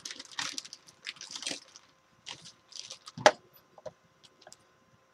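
Parts and tools being handled on a workbench: short rustles and small clicks, with one sharp knock a little over three seconds in.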